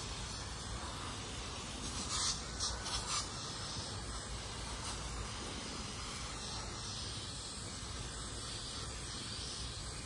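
Aerosol can of caliper paint spraying in a continuous steady hiss, a little louder for a moment about two seconds in.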